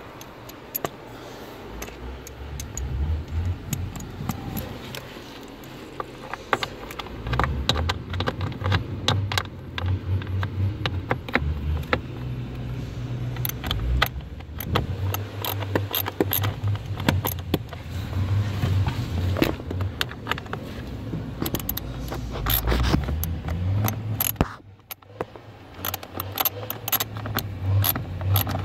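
Ratchet and socket clicking in quick runs with metallic tool rattle as the bolts holding a Honda Fit's blower motor are undone, over a low rumble.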